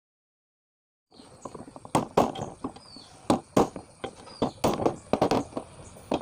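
An irregular run of about a dozen sharp knocks and taps from work on the chainsaw engine's parts as it is being taken apart, starting about a second in.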